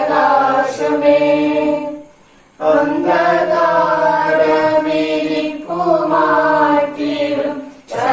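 A slow Malayalam devotional hymn being sung in long held notes, with a short pause for breath about two seconds in and another near the end.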